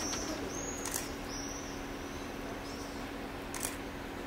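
Three sharp camera-shutter clicks: one at the start, one about a second in, one near the end. A few high chirps of small birds come in the first second and a half, over a steady low hum.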